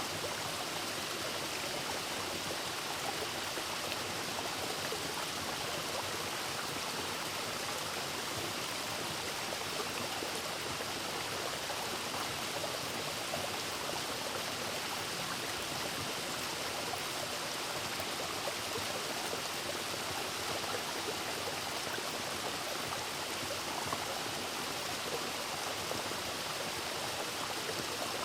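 Mountain waterfall and its stream: a steady, unbroken rush of falling and running water.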